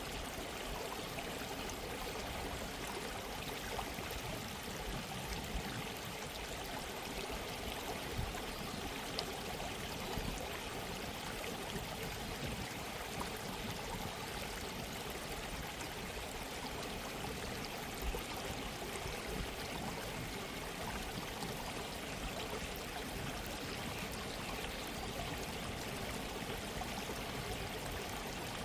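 Gentle stream of running water, a steady babbling flow with small splashes here and there.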